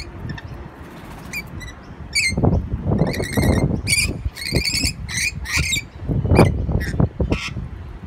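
Rainbow lorikeets giving many short, high-pitched screeching calls in quick succession, with low rumbling bursts mixed in, the loudest about six seconds in.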